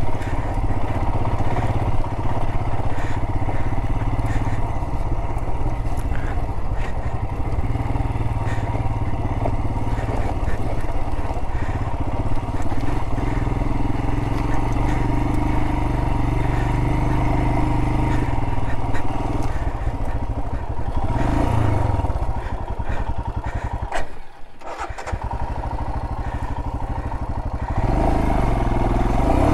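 Adventure motorcycle engine running steadily under way on an off-road trail. The throttle eases off briefly about three-quarters of the way through, then the engine picks up again near the end.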